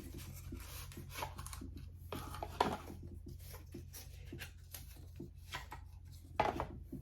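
Hands handling cosmetic packaging: scattered rustling, rubbing and light clicks, with louder knocks about two and a half and six and a half seconds in, over a steady low hum.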